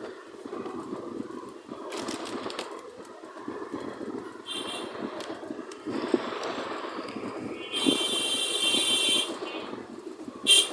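Synthetic robot sound effects: a steady mechanical whirring noise, with a high electronic buzz for about a second and a half near the middle, and a short sharp burst near the end.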